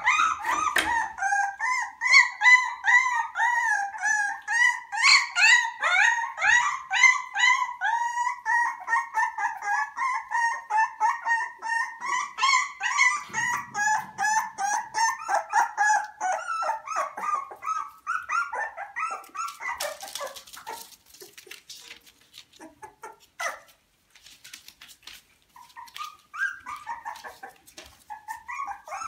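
Beagle puppies about three and a half weeks old whining and yelping, a fast unbroken string of short high cries several a second. The cries thin out about two-thirds of the way through into scattered clicks and scrapes, then pick up again near the end.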